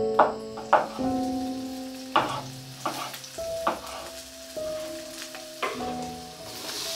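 Slow piano notes of background music, each struck note ringing and fading, over food sizzling in a frying pan; the sizzle grows louder near the end.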